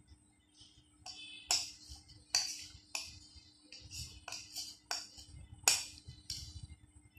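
Metal spoon scraping out and knocking against a plastic serving bowl over a plate of rice, a run of sharp scrapes and clinks. The loudest come about a second and a half in and near the end.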